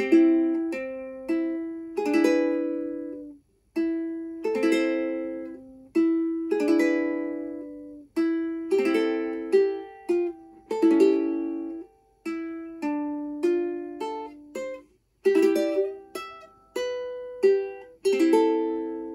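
Ukulele played solo, picking out a melody with chords struck about every two seconds, each note ringing and dying away.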